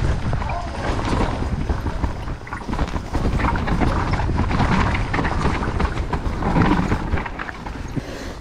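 Wind buffeting the microphone over the rattle and knocking of a downhill mountain bike ridden fast on a wet, rough trail, with many short clicks and clatters and a heavy low rumble throughout.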